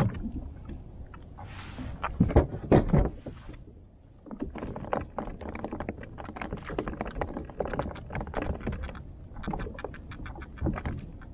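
A few loud knocks about two to three seconds in, then a fishing reel being cranked, a fast run of small clicks, as a hooked fish is reeled up to the kayak.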